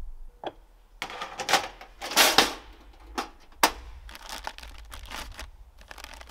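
Camp gear being handled on a wooden picnic table: a series of sharp clicks and clacks with rustling between them, and a louder brief scraping rush about two seconds in.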